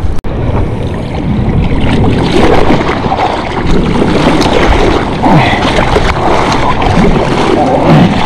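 Seawater sloshing and splashing against an action camera held at the waterline while a surfer paddles a surfboard, with spray off the board's nose near the end.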